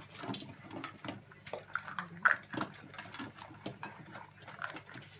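Cockapoo puppies eating from metal bowls: irregular clicking and chewing as their mouths work the food and knock against the bowls, with the loudest click about two seconds in.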